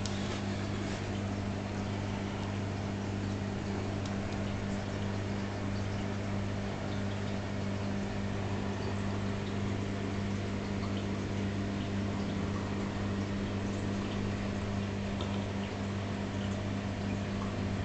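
Steady low hum of reef aquarium pumps and equipment running, under an even hiss of circulating water.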